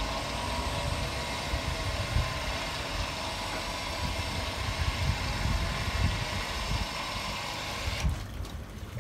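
A tow car's engine running steadily under load as it pulls a boat on its trailer up a slipway; the sound drops away about a second before the end.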